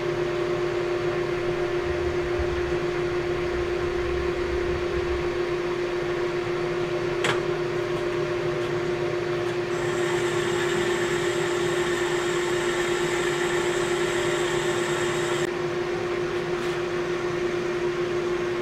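Metal lathe running steadily with a strong constant hum while rough-turning an engine valve's stem at 0.25 mm per pass. A brighter hiss joins in for about five seconds from about ten seconds in, and there is a single sharp click about seven seconds in.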